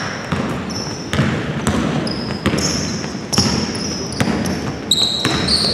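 Basketball being dribbled on a wooden gym floor, with sneakers squeaking in short high chirps and players' footsteps.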